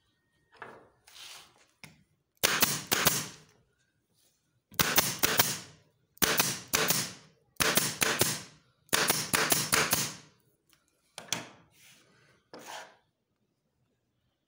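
Staple gun firing staples through upholstery fabric into a wooden chair frame: sharp clacks in quick runs of three to five, with short pauses while it is moved along, then two single shots near the end.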